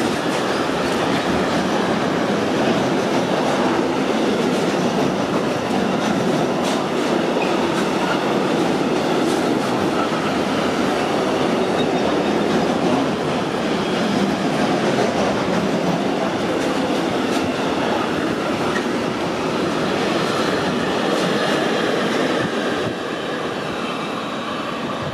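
Intermodal freight train of pocket wagons loaded with semi-trailers rolling past close by: a steady, loud noise of steel wheels running on the rails with scattered clicks, becoming somewhat quieter near the end.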